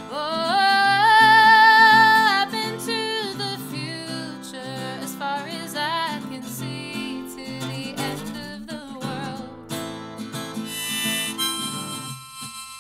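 Acoustic guitar strummed steadily under a woman's long sung "oh" with vibrato at the start, then a wavering melody line over the strumming. About ten seconds in, a harmonica held in a neck rack comes in with held tones over the guitar.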